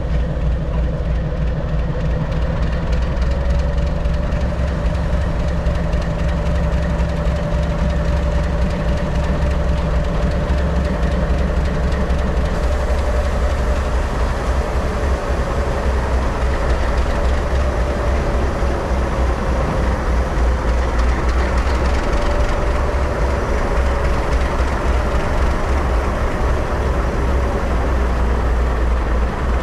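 Two Goodwin-ALCO 48 class diesel-electric locomotives moving slowly past, their six-cylinder ALCO 251 diesel engines running with a steady low rumble and a thin wavering whine above it. A lower steady hum drops out about halfway through.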